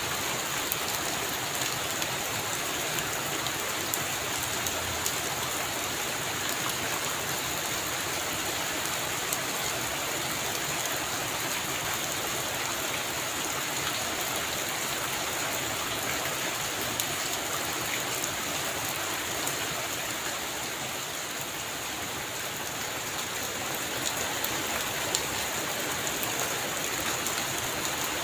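Heavy rain falling steadily, a dense even hiss with scattered sharp drop splashes.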